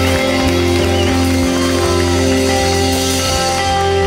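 Live band playing music, full and steady in level.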